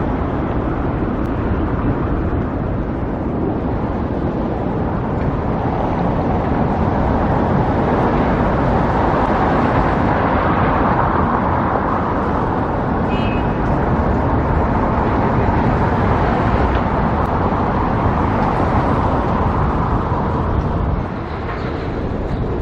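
Steady rush of road traffic on a busy street, swelling as vehicles pass and easing again.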